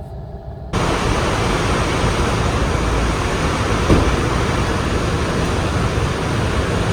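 Steady rushing background noise, a dense even din with a strong low rumble, that starts abruptly less than a second in.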